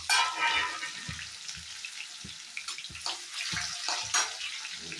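Garlic cloves sizzling in hot oil in an iron kadhai, with a loud surge of sizzle at the start and irregular crackling pops throughout. A slotted metal spatula goes into the pan near the end.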